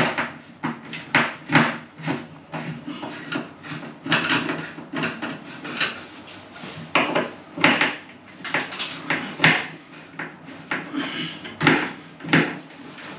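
Irregular clicks and knocks from a plastic ceiling light fitting being handled and taken apart by hand.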